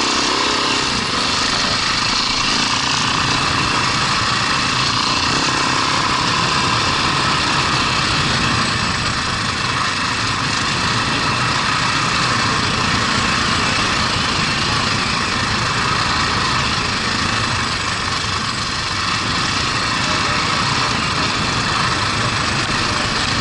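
Husaberg FE570 dirt bike's single-cylinder four-stroke engine running steadily under way on a dirt trail, mixed with rushing wind noise on a helmet-mounted microphone.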